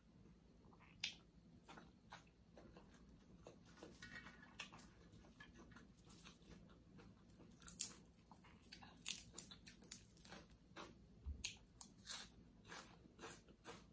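Close-up eating sounds: chewing and crisp crunching of a Thai glass-noodle salad with fresh herbs and raw vegetables. It comes as a string of short, sharp crunches that get more frequent in the second half, the loudest about eight seconds in.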